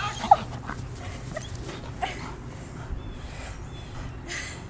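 Belgian Malinois whining and whimpering in short high yelps during a bite on a person in a bite suit, the loudest a sharp yelp about a third of a second in, with a couple of brief scuffling noises later.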